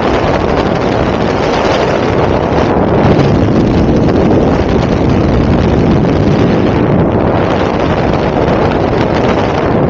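Loud, steady wind noise from airflow rushing over the microphone of a camera mounted on a hang glider in fast flight.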